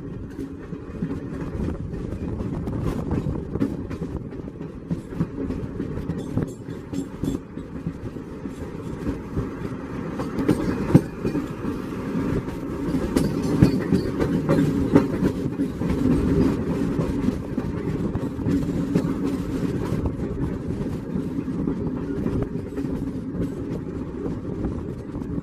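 Passenger train running at speed, heard from an open window of a coach: a steady rumble of wheels on rails with many irregular clicks and clatters, louder through the middle stretch.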